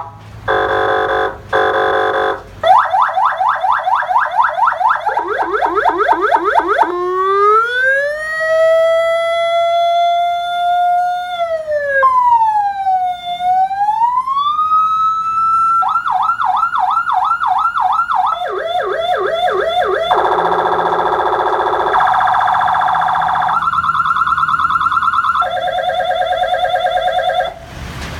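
Electronic emergency-vehicle siren stepping through its tone patterns. It opens with short pulsed tones, then fast repeating yelp sweeps, then a slow wail that rises, holds, swoops down and back up. After that come quicker warbles and alternating two-tone hi-lo and steady tones, each pattern a few seconds long.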